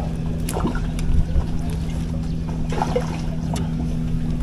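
Steady low hum of a motor running, with a few light clicks of handling and a little water trickling.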